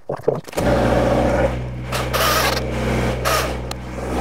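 Compact diesel tractor engine running steadily, starting suddenly about half a second in, with a couple of short hissing bursts over it.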